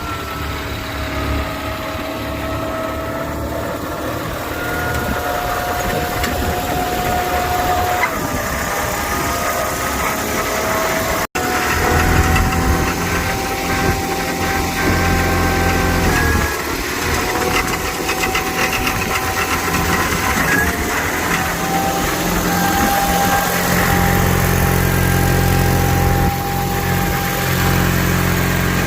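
HydraMac 6C skid steer running, its engine rumble joined by a steady whine that shifts up and down in pitch a few times as the speed or load changes. The sound cuts out for an instant about eleven seconds in.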